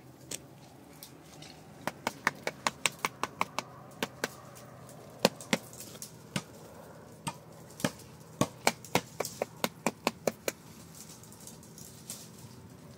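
Sharp knocks in two fast runs of about five strokes a second, the first starting about two seconds in and the second a few seconds later, with a few single knocks between them.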